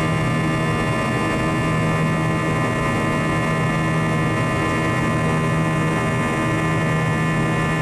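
Airbus A321's turbofan engines heard from inside the cabin at climb thrust: a steady drone with a buzz of many even tones, the engine buzz of the fan at high power.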